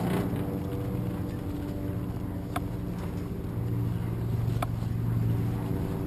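An engine running steadily with a low hum that swells a little in the middle, and two sharp clicks about two seconds apart.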